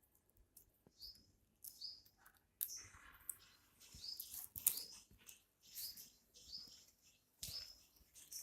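Baby parrot chirping: short, high-pitched calls, each dipping slightly in pitch, repeated about every half second to second.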